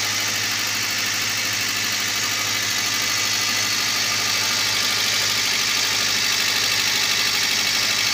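Toyota Avanza's four-cylinder petrol engine idling steadily, with a new ignition coil fitted to cure a misfire. The mechanic judges the idle good, calm and stable now.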